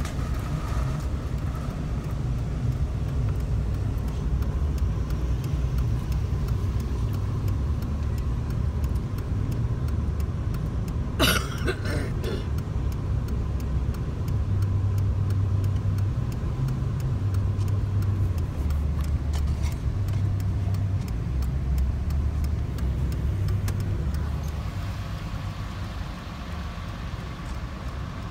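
Steady engine and road rumble heard inside the cabin of a moving vehicle, with one short sharp noise about eleven seconds in. The rumble eases off near the end.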